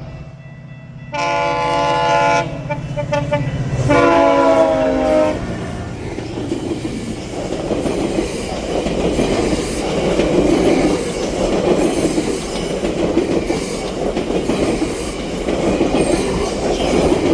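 MP40 diesel locomotive's horn sounding in blasts for the first few seconds, then the train passing close by, wheels clattering over the grade crossing.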